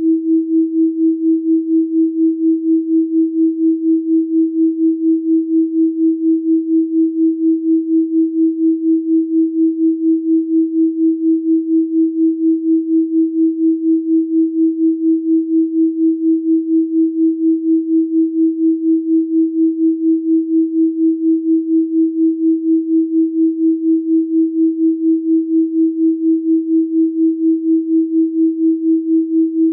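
A continuous electronic pure tone at 324 Hz, one steady pitch with no overtones, pulsing evenly in loudness about three times a second.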